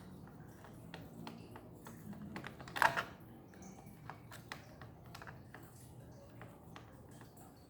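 Small scattered clicks and taps of a screwdriver and hands working on a laptop's plastic bottom case, with a louder cluster of clicks about three seconds in.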